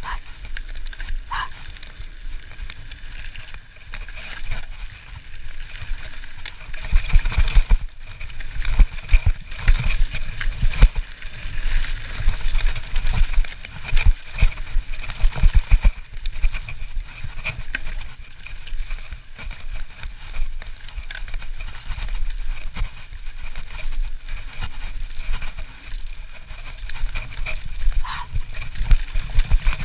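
Trek Slash enduro mountain bike riding down a dirt and gravel forest trail: tyres rolling over the ground and the bike rattling, with irregular low thumps as it hits bumps and roots.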